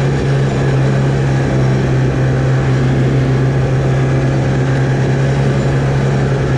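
Ski-Doo snowmobile's two-stroke engine running under way at a steady, unchanging pitch.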